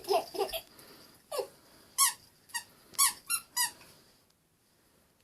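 Baby squealing with laughter: a string of short, high-pitched squeals, roughly one every half second to second, that stop about four seconds in.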